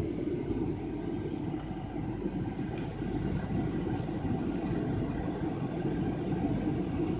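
Van's air-conditioning blower running steadily, air rushing from the dash vents, with the engine running underneath; the system blows cold after the high-pressure line repair.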